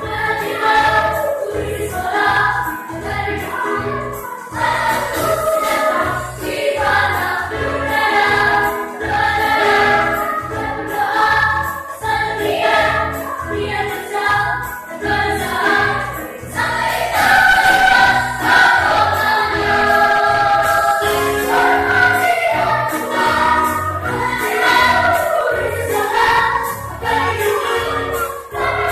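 Children's choir singing together over an accompaniment with a steady low beat.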